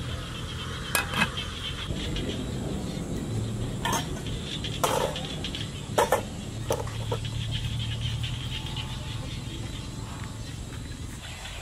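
Charcoal fire in a brick stove crackling, with a handful of sharp pops between about one and seven seconds in, over a low steady rumble.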